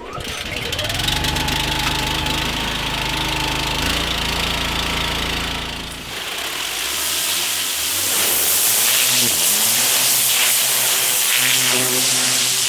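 Pressure washer running: a steady engine drone at first, then from about six seconds in the loud, even hiss of a turbo-nozzle water jet blasting dirt and lichen from block paving.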